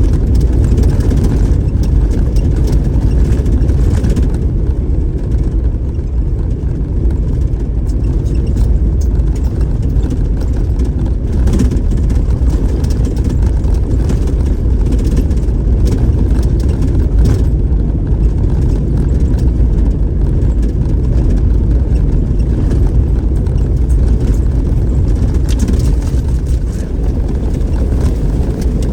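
Off-road vehicle driving fast on a dirt trail: a steady, loud low rumble of engine and tyres on the dirt, with scattered light ticks over it.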